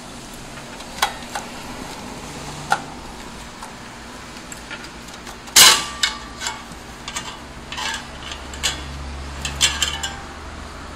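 Sheet-metal computer power supply case being handled and its top cover lifted off: a series of metallic clinks and knocks, the loudest a little past halfway, followed by a run of lighter clicks.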